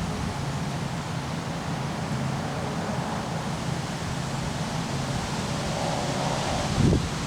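Wind blowing steadily through trees, leaves rustling in a continuous hiss, with a gust buffeting the microphone in a low rumble just before the end.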